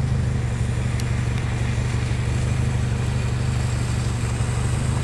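Steady low engine hum, even and unchanging, like a vehicle idling.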